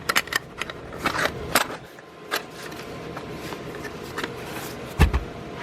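Metal hand wrenches clinking and clicking against each other as they are handled, with one dull thump about five seconds in as something is set down.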